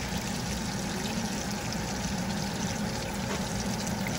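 Breaded chicken cutlets sizzling as they shallow-fry in hot olive and vegetable oil: a steady hiss with small crackles.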